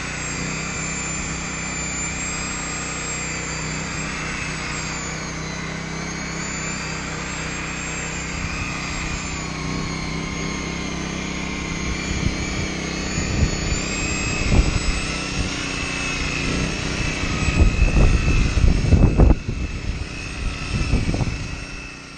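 Electric buffer running steadily against a fibreglass boat hull, its motor whine wavering slowly in pitch as the load on the pad changes. From about twelve seconds in, irregular low thumps and rumbles build up, loudest near the end.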